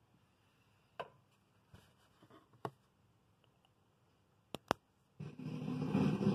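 A few sharp clicks over near-quiet, then an electric guitar (Telecaster-style) starts playing loudly about five seconds in.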